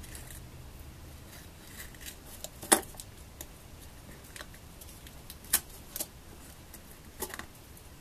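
A small metal makeup pan and its packaging being handled on a tabletop: several sharp, separate clicks and taps. The loudest is nearly three seconds in, and a few more come in the second half.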